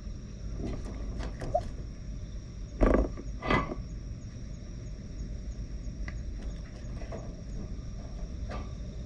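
Typhoon wind buffeting the microphone with a steady low rumble, and two louder knocks close together about three seconds in.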